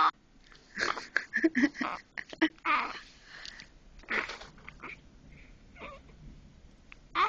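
Newborn baby making a string of short squeaks, grunts and whimpers, several close together in the first few seconds, then fewer and fainter.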